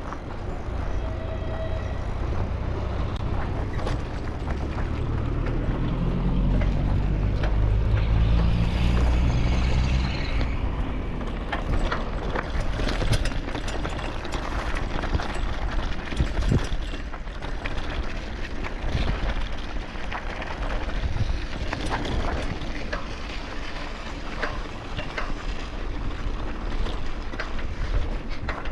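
Riding a bicycle: wind on the microphone with steady tyre and road noise and frequent small rattles. A low rumble swells between about six and ten seconds in.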